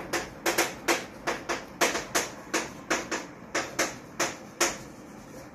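Chalk clicking against a chalkboard as letters are written, a quick run of sharp taps about three or four a second, stopping about four and a half seconds in.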